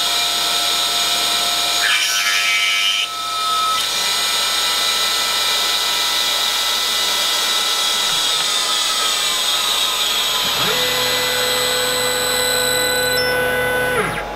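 A CNC milling machine's spindle runs a small 2.5 mm drill with a steady high-pitched whine. From about two to four seconds in there is a rougher burst as the drill cuts into the plate. From about ten seconds in a lower steady hum joins it as the CNC table moves to the next position, stopping just before the end.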